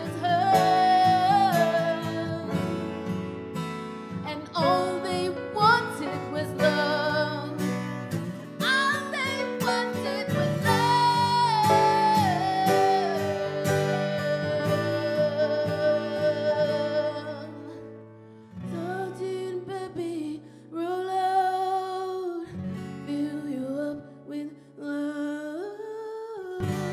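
A woman singing a slow ballad with long, gliding held notes, accompanied by acoustic guitar and grand piano. The music grows quieter and sparser about two-thirds of the way through.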